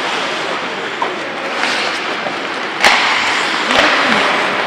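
Ice hockey play: skates scraping and hissing on the ice in swelling waves, with one sharp crack of a stick or puck about three seconds in and a couple of softer knocks just after.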